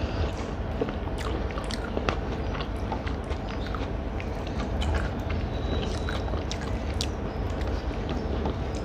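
A person chewing food close to the microphone: irregular wet clicks and smacks of the mouth, over a steady low hum.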